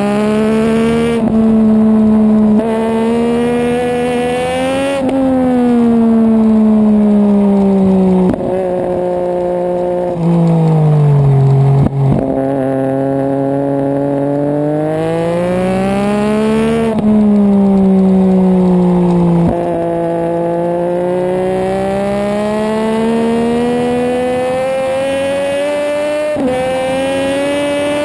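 Racing motorcycle engine at high revs on a circuit lap. The pitch climbs and cuts sharply back at each upshift several times, and glides down as the bike slows for corners.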